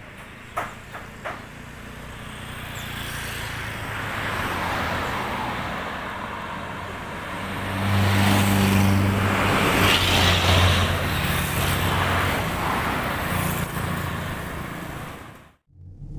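Road traffic passing. The sound swells as vehicles approach and is loudest from about halfway through, as a small Suzuki pickup truck drives past close with its engine running. It cuts off shortly before the end.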